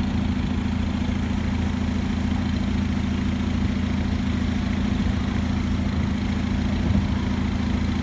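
Volkswagen Golf hatchback engine idling, heard close behind its twin tailpipes: a steady low drone that holds even throughout.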